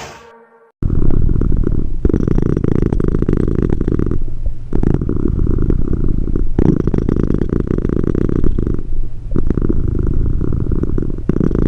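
Cat purring, a rapid low rumble with short breaks about every two seconds as it breathes; it starts about a second in after a moment of silence.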